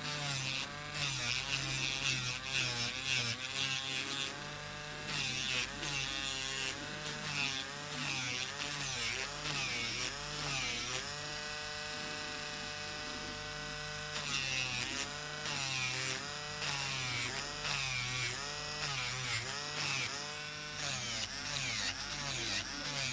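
Electric nail drill running a medium ceramic safety bit, filing acrylic flush at the cuticle area. The motor's pitch dips and recovers over and over as the bit is pressed to the nail and eased off, with a grinding hiss on contact and a steadier free-running stretch around the middle.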